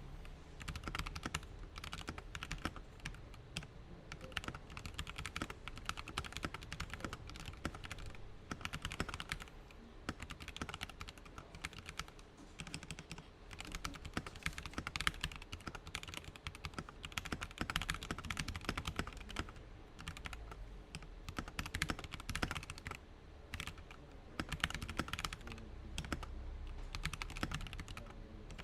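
Fast typing on a Tecware Veil 80 wireless mechanical keyboard with black switches: a dense, steady run of keystrokes broken by a few short pauses.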